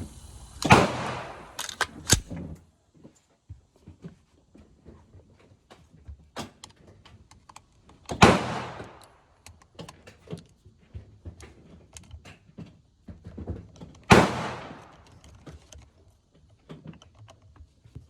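AR-15 rifle shots: loud single shots about a second in, about eight seconds in and about fourteen seconds in, each ringing out for about a second. Fainter sharp shots and clicks fall between them.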